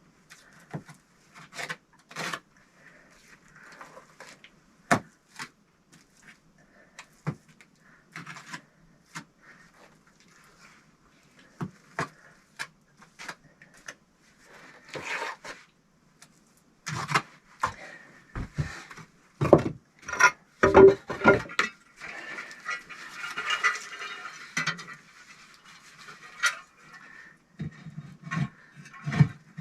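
Hand work on a brick stove: scattered knocks and clinks of bricks and tools being set down and tapped, with a run of heavier thumps about two-thirds of the way through, then a few seconds of gritty scraping.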